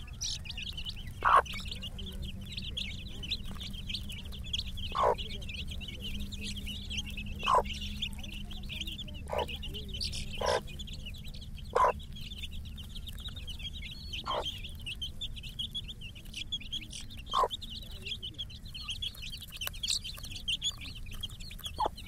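A flock of 20-day-old country chicken chicks peeping non-stop in a high, rapid chatter while feeding. About nine short, lower clucks stand out over it, a second or a few seconds apart, from the mother hen.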